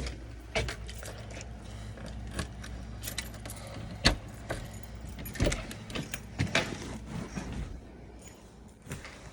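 Keys jangling, with scattered clicks and knocks, over a low steady rumble that drops away about eight seconds in.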